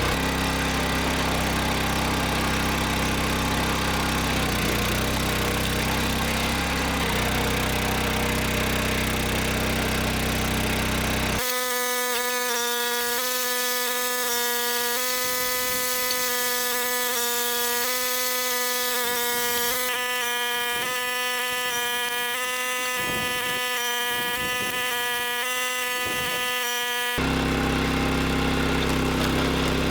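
Gas engine of a 25-ton log splitter running steadily. For a long stretch in the middle the engine noise cuts out abruptly and a steady tone with a clean set of overtones takes its place, then the engine sound returns near the end.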